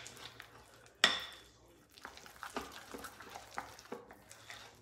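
A utensil stirring a thick, creamy chicken-and-cream-cheese dip in a glass mixing bowl, with light scrapes and taps against the glass. The sharpest clink comes about a second in.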